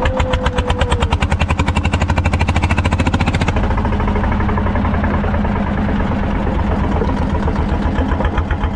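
Small local boat's engine running with rapid, even pulses. Its hiss drops away abruptly about three and a half seconds in, and the low, steady running goes on.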